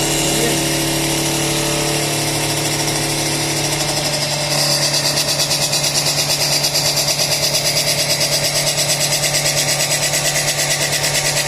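CNC lathe running with a steady machine hum; about four and a half seconds in, a rapid, even pulsing cutting noise sets in as the tool works the turning piece, and it all stops abruptly at the end.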